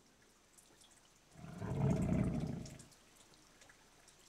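A deep roar-like rumble that swells up and fades away over about a second and a half, over faint lapping water.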